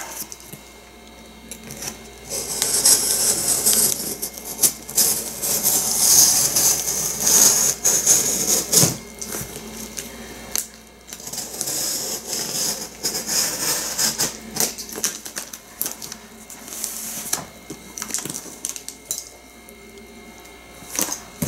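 Cardboard box being handled and its packing tape worked at with a box cutter on crinkly plastic sheeting: scraping, rustling and scattered small knocks, busiest from about two to nine seconds in and again briefly after eleven, then quieter.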